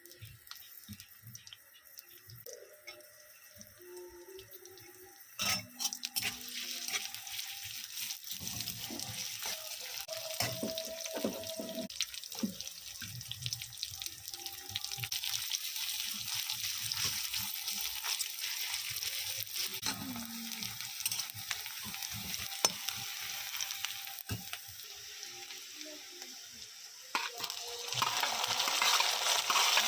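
Food sizzling in hot oil in a pan, with clicks of a utensil stirring. The sizzle starts suddenly about five seconds in and gets louder near the end.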